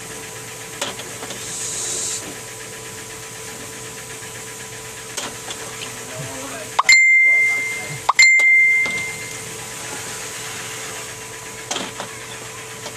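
Two loud, bell-like dings about a second apart, each ringing and fading over about a second, over a faint steady electrical hum with a few light clicks.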